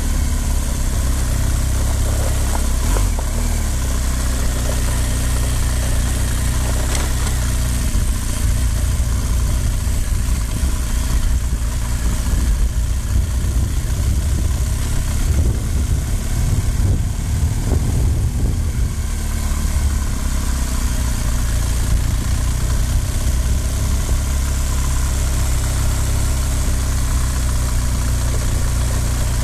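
Off-road motorcycle engine running steadily while riding along a rough dirt and grass track, heard close from the rider's own bike, with a steady rush of noise over it.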